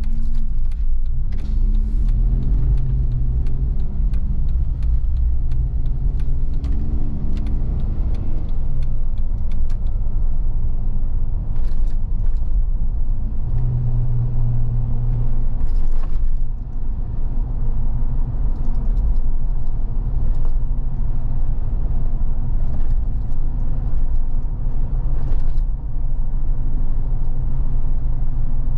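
2018 Jeep Wrangler Sahara heard from inside the cabin while driving in town: a steady low engine and road rumble. Early on the engine note rises twice as the Jeep accelerates through the gears, and short clicks and knocks of cabin rattles come now and then.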